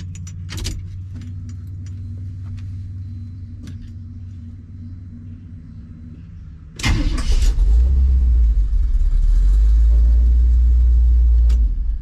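1983 Chevy C10 truck's ignition key turned in a newly fitted lock cylinder, clicking over a steady low hum. About seven seconds in, the engine starts with a sudden burst, runs steadily with a deep rumble for about five seconds, then cuts off abruptly.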